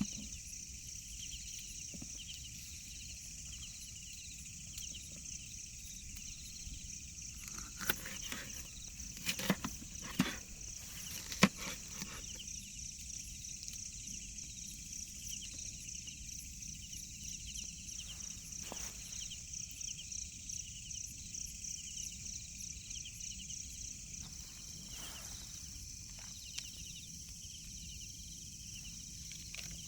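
Insects chirring in a steady, high, rapidly pulsing drone. A handful of sharp knocks or cracks come about a third of the way in, the loudest just after the middle of that cluster, with a couple of fainter ones later.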